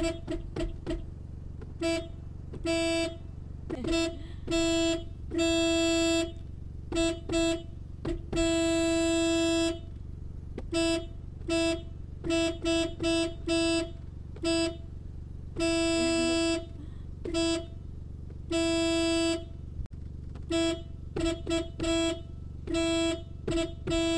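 Suzuki Jimny's car horn sounded in a rapid, irregular series of short toots mixed with a few longer blasts of about a second each.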